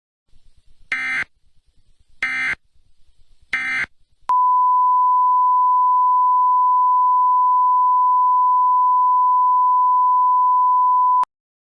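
Three short, buzzy digital data bursts about a second and a half apart, typical of an Emergency Alert System end-of-message signal. Then a loud steady 1 kHz tone sounds for about seven seconds and cuts off suddenly.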